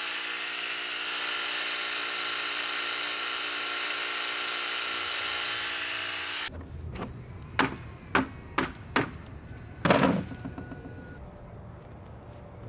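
A steady electric motor hum that cuts off abruptly about two-thirds in. After it, five or so sharp knocks and thunks in quick succession, the last one the longest, over a quiet outdoor background.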